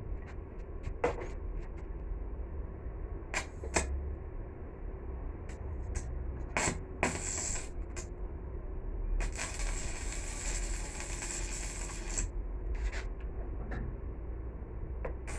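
Metalworking sounds: scattered sharp clicks and knocks of metal parts being handled, then a steady hiss lasting about three seconds, over a low background hum.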